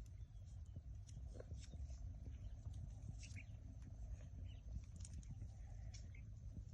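Faint rustling and small snaps of dry cotton plants as bolls are plucked by hand, with scattered short bird chirps and a low rumble of wind on the microphone.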